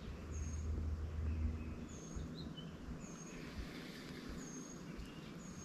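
Bird calling from the wooded bank: a short, high, slightly falling note repeated about every second and a bit, with softer chirps between. A low rumble sits under the first second and a half.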